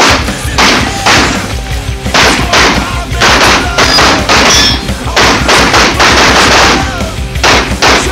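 Loud rock music laid over the footage, with a heavy drum beat about twice a second over a steady bass line.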